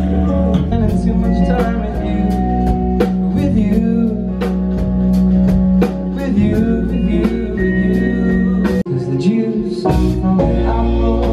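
Live band playing a song, with singing over acoustic guitar, keyboard, bass and drums, heard through the room. The sound drops out for an instant about nine seconds in, where the recording cuts.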